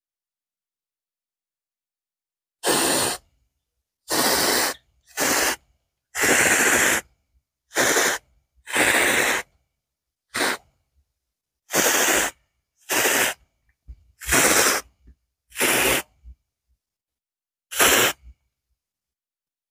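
Hand sprayer misting insecticide onto trees in short hissing bursts, one squeeze at a time. There are about a dozen bursts, each under a second, with pauses between them.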